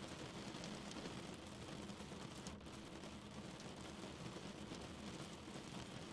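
Heavy rain falling on a car, a steady dense patter of drops.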